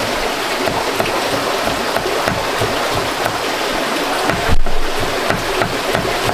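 Water running and splashing steadily, with soft sloshes about twice a second and a louder splash about four and a half seconds in, as of leaves being washed by hand in a basin.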